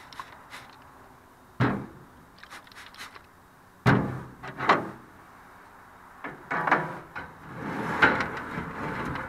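Metal clanks and rattling from a vertical smoker as its door and inner grates are handled with pliers: three sharp knocks, then a longer stretch of clattering and scraping near the end.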